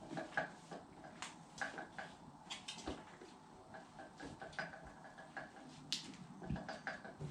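Scattered light clicks and knocks of hand tools and parts being handled on a manual motorcycle tire changer, with the tire and rim being worked by hand.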